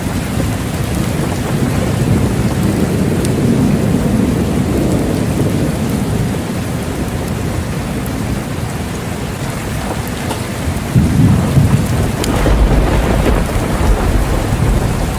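Steady heavy rain with thunder rumbling underneath, swelling a few seconds in and again near the end, where a deep low rumble builds and holds.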